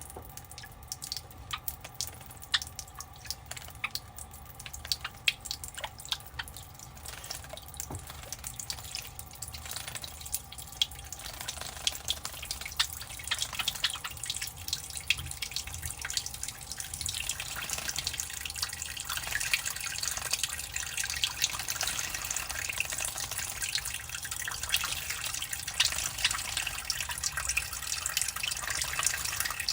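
Java sparrows bathing in a shallow water dish: scattered small splashes and drips at first, growing into near-continuous fluttering splashes in the second half, then cutting off abruptly.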